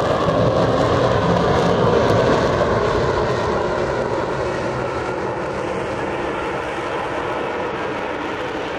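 Lockheed Martin F-35B hovering, its F135 jet engine and lift fan running at high power: a loud, steady jet noise with a faint falling whine near the start, growing a little quieter over the second half.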